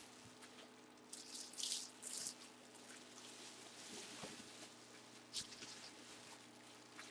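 Faint crinkling and rustling of plastic bubble wrap around a full-size football helmet as it is handled, with two louder bursts of crinkling a second or two in and a single sharp click later on.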